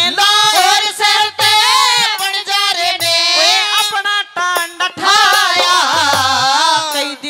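A man singing a Haryanvi folk song into a stage microphone in long, high, ornamented held lines, with a few low beats underneath.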